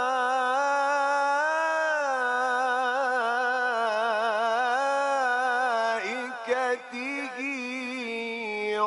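A man reciting the Quran in the melodic tajweed style, holding one long ornamented note whose pitch wavers, then moving into shorter sung phrases about six seconds in.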